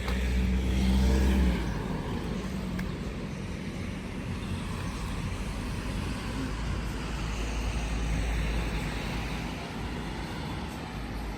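Steady road-vehicle and traffic noise, with a louder low engine drone in the first second and a half.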